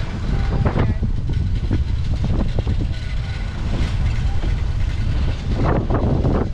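Steady low rumble of a moving bicycle ride: wind buffeting the microphone and tyres rolling over pavement, with brief voices of people nearby.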